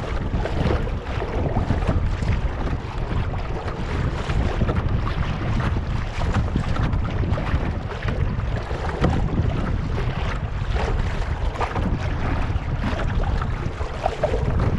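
Wind buffeting the microphone in a steady low rumble, with water lapping and splashing against the bow of a kayak in many small crackling slaps.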